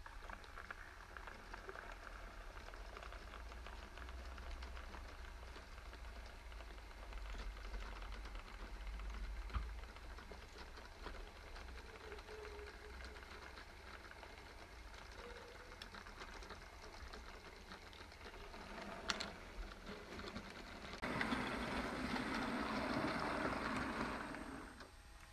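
Model GWR 57XX pannier tank locomotive and container wagons running along the track: a steady motor whir with small wheels clicking and rattling over the rails. The rattle grows louder for the last few seconds as the wagons pass close by.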